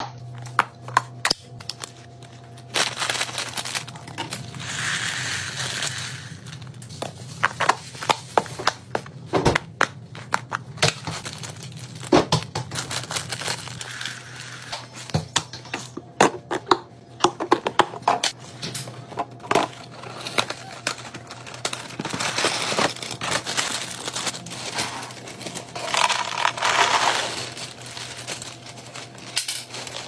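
Hands working a clip-lock plastic food container, with the latches and lid clicking and snapping, and a plastic cereal bag crinkling. Dry cereal squares pour into the container in rustling, rattling rushes.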